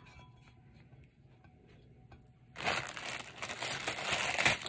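Clear plastic wrapping crinkling as it is handled, starting suddenly about halfway through and staying loud.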